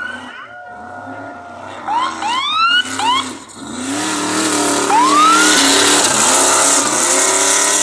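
Off-road race buggy accelerating hard on a sandy course, its engine pitch rising in several quick sweeps through the gears. About four seconds in it grows loud as it passes close by, with a broad rush of noise.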